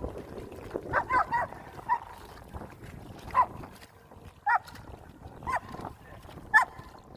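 A dog giving short, high-pitched whimpers, each dropping in pitch. There is a quick cluster of them near the start, then single ones about once a second.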